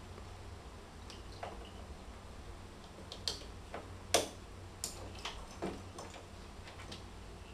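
Irregular light clicks and taps of plastic wiring connectors being handled and plugged together, about nine clicks spread over several seconds, the sharpest about four seconds in.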